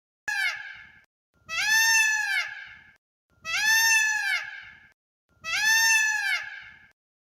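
An animal call: a short cry, then the same long, arching call three times in a row, about two seconds apart.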